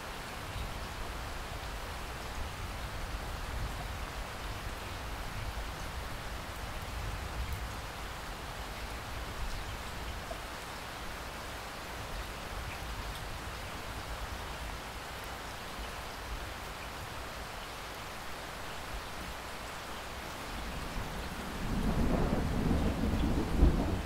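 Heavy rain splashing steadily onto a flat surface covered in standing water. Near the end a low rumble of thunder comes in and grows louder.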